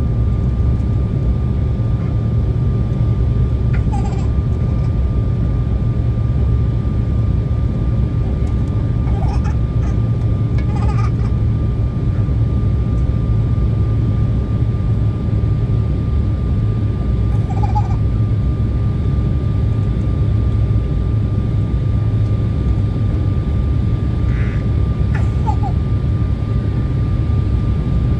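Steady cabin noise of an Embraer 175 jet in descent: a loud, even low rumble of engines and airflow, with a thin steady whine over it.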